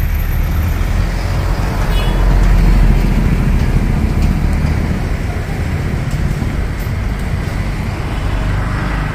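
Steady, loud, low rumbling outdoor noise, swelling a little about two to three seconds in.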